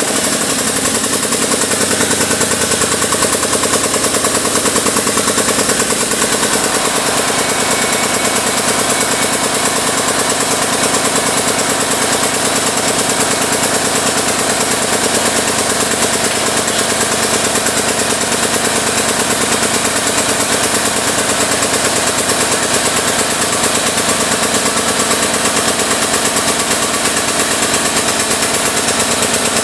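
Harbor Freight 8-ton air-over-hydraulic ram's air-driven pump running with a loud, rapid, steady chatter, building hydraulic pressure to extend the ram and swing the tubing bender's arm.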